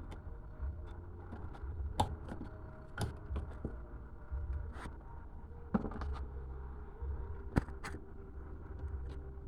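Scattered sharp clicks and light knocks, about half a dozen, over a low rumble: plastic and metal parts of a washing machine being handled while a water inlet valve is fitted.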